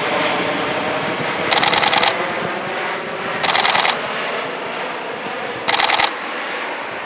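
Four-engine turboprop drone of an RCAF C-130 Hercules passing overhead, slowly fading, overlaid by three half-second bursts of rapid camera shutter clicks from high-speed continuous shooting.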